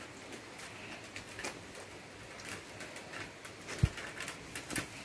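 Light rain pattering and dripping on wet pavement, a faint steady hiss with scattered small ticks. A single sharp low thump comes a little under four seconds in.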